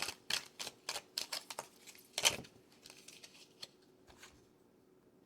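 Tarot cards being handled: a quick run of crisp card flicks and taps, the loudest about two seconds in, thinning out and falling quiet near the end.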